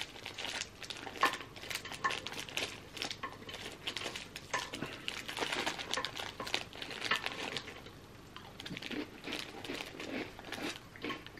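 A snack packet crinkling and rustling as it is handled, with many small irregular clicks and taps.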